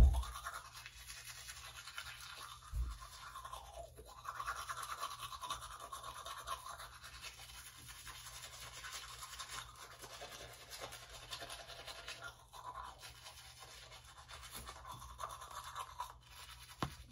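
Manual toothbrush scrubbing teeth, short back-and-forth brushing strokes coming in stretches, with a soft knock about three seconds in.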